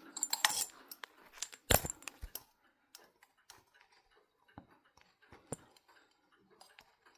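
Light metallic clicks and knocks from handling a ceiling fan's blade-mounting screws and hardware with a screwdriver: a quick cluster in the first couple of seconds, then only scattered faint ticks.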